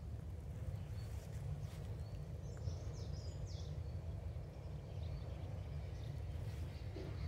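Outdoor garden ambience: a steady low rumble of wind on the phone's microphone, with a small bird giving a few quick chirps about halfway through.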